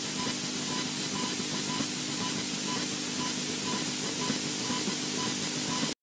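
Steady static-like hiss from a nest webcam's audio feed, with a faint low hum and a faint high pip repeating about three times a second. It cuts off abruptly at the very end.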